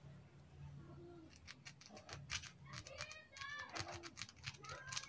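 Faint small clicks and scratches as a pointed tool scrapes the enamel off a copper winding wire on a ceiling fan stator, with birds calling faintly a few times in the background.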